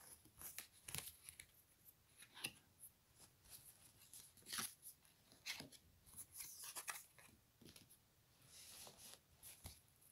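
Faint, irregular rustles, slides and soft taps of oracle cards being drawn from the deck and laid face down on a cloth.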